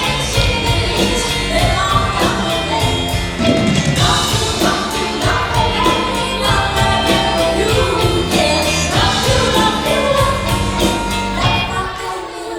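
A live band playing a rock ballad with sung vocals over drums, bass, guitar and keys, easing off near the end.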